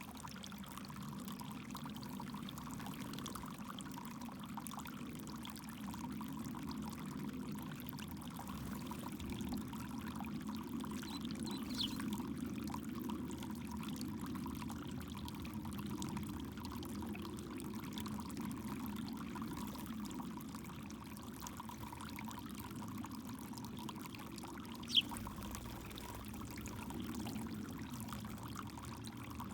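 Backyard fountain water pouring and splashing steadily, with one short sharp sound near the end.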